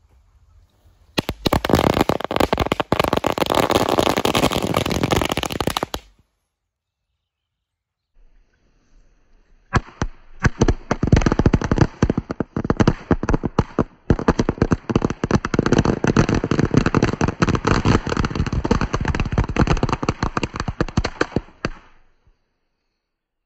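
A 1000-cracker firecracker string packed inside a DVD player going off as a rapid, continuous crackle of bangs. It breaks off after about five seconds, resumes about four seconds later for roughly twelve seconds more, then stops.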